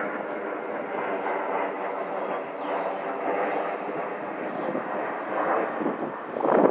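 Airbus A321-200 airliner passing overhead, its twin jet engines making a steady rushing rumble with faint steady tones running through it. It grows louder briefly near the end.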